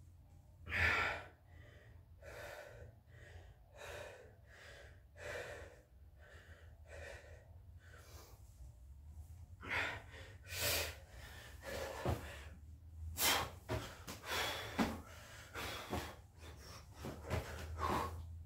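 A man breathing hard from burpees: quick, regular breaths, roughly one and a half a second, getting louder and heavier about ten seconds in.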